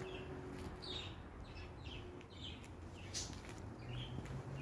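Small birds chirping: a quick, irregular series of short high chirps, several each second, over a faint steady low hum.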